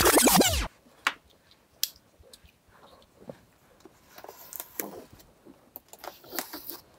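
The end of an intro logo swoosh, falling in pitch and cutting off under a second in. Then a cardboard shipping box is handled: light scrapes, taps and rustles of hands on the cardboard.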